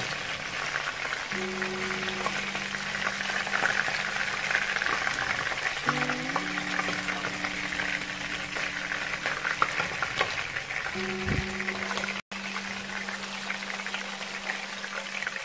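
Fish pieces shallow-frying in hot oil, a steady sizzle with dense crackling. Soft background music with sustained notes plays under it, and the sound cuts out for an instant about twelve seconds in.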